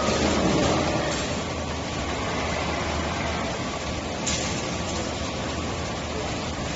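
Steady industrial hum and noise of an induction melting furnace plant running, with a faint high tone throughout. The noise surges briefly in the first second, and there is a short hiss about four seconds in.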